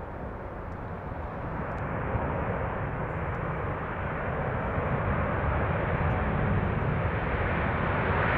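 Jet airliner engines: a steady rumble that grows gradually louder as the aircraft draws nearer.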